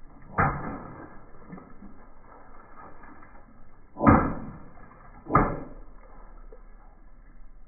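Car tyre rolling slowly over water-filled balloons on wet paving, crushing them, with three sudden loud bangs: one about half a second in, then two more about four and five and a half seconds in, each dying away quickly.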